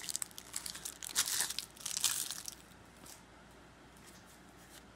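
Plastic wrap crinkling and tearing as it is pulled off a deck of playing cards, a run of crackles that stops about halfway through.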